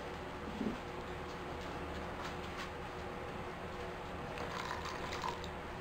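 Quiet, steady room noise with a few faint light clicks and taps scattered through it.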